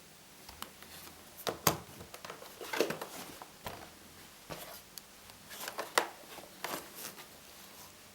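Handling noises: irregular clicks, taps and short scrapes, with the sharpest clicks about one and a half seconds and six seconds in.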